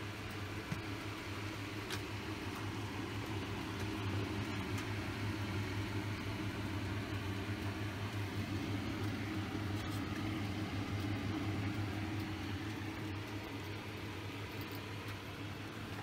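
Steady low electrical machine hum with a constant drone, swelling slightly in the middle.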